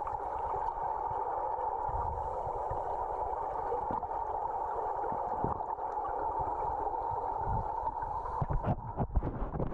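Muffled underwater noise picked up through a GoPro's waterproof housing: a steady hiss with scattered low thumps. Near the end it turns into irregular splashing and knocking, as the camera moves toward the surface.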